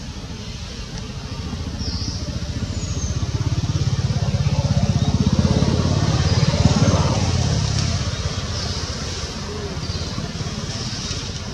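A motorbike passing by, its pulsing engine swelling to a peak about two-thirds of the way through and then fading. Short high-pitched chirps recur every second or two.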